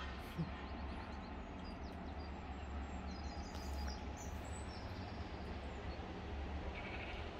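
Steady low background rumble, with a few faint high chirps near the middle.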